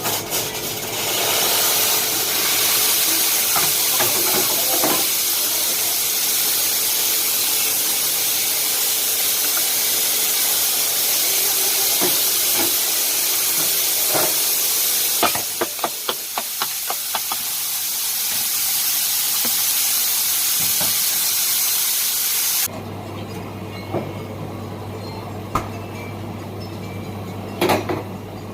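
Espresso machine steam wand letting off steam in a steady hiss that dips briefly with a few clicks about two-thirds through, then cuts off suddenly. After it, a low steady machine hum and a few light knocks.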